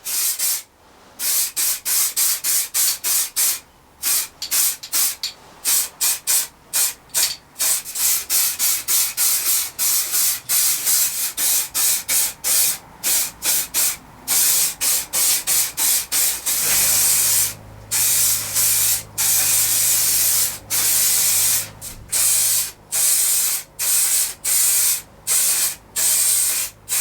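Aerosol spray can of primer hissing in quick short bursts, then in longer passes from about two-thirds of the way in, as a coat of primer goes onto a metal rack.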